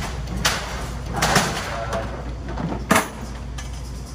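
A few sharp knocks and clunks, the loudest about three seconds in, over the steady low hum of a car, heard from inside the vehicle.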